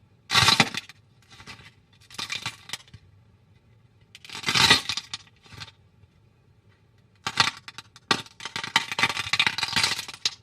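Slime being squeezed and pressed by hand, crackling and popping with many small clicks in a series of short bursts, the longest near the end.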